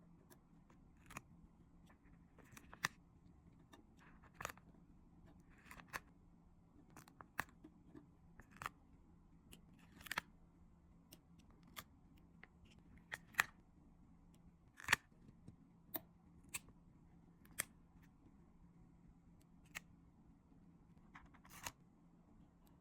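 3D paper stickers being peeled from their sheet and pressed into place: scattered sharp clicks and taps, some with a brief papery rustle, roughly one a second over a faint steady hum.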